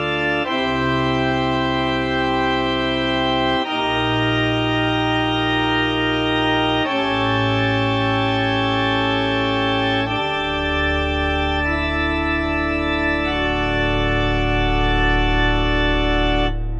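Background music: sustained organ-like chords that change every few seconds.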